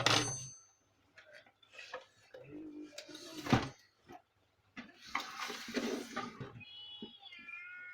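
A sharp metallic clink with a short ringing tail, then scattered knocks, scrapes and clattering of plastic and metal parts as a laser printer's casing is opened up by hand.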